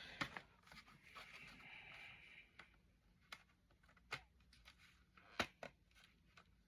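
Quiet handling of plastic CD and cassette cases: light rustling in the first couple of seconds, then a few scattered small clicks, the sharpest about five and a half seconds in.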